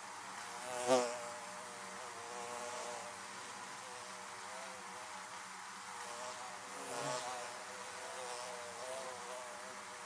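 Honeybees buzzing around a wooden beehive: a steady, wavering hum of many bees, with a louder, closer buzz twice, about a second in and again about seven seconds in.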